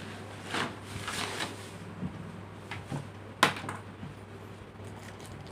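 Handling noises while unboxing a pair of jeans: several short rustles and knocks, the sharpest about three and a half seconds in, over a steady low hum.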